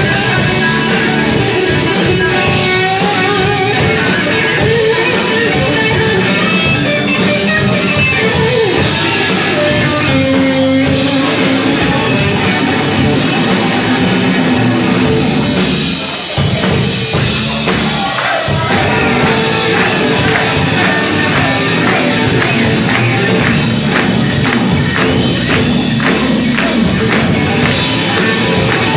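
Rock music with electric guitar and drum kit, loud and continuous, with a brief drop about sixteen seconds in.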